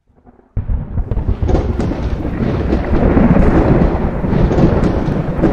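Cinematic thunder-like rumble sound effect for an animated intro, starting suddenly about half a second in and holding loud, a heavy low rumble with crackles over it.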